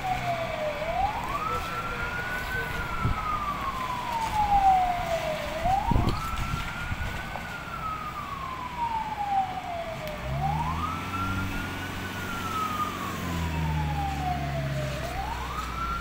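Emergency vehicle siren in a slow wail: each cycle climbs quickly, then falls away in a long glide, repeating about every five seconds. About ten seconds in, a vehicle engine hums close by for several seconds under the siren.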